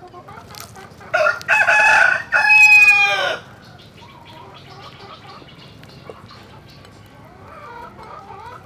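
A rooster crowing once, loud, for about two seconds starting about a second in, its last long note falling away. Faint bird calls chirp in the background.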